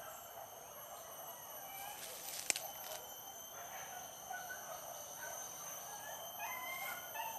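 Tropical forest ambience: a steady high insect drone with short animal calls in the distance, several of them close together near the end. One sharp click about two and a half seconds in.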